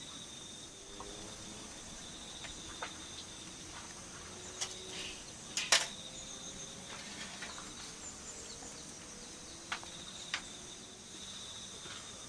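Crickets trilling steadily in the background, with a few short clicks and knocks from handling things, the loudest a little before halfway through.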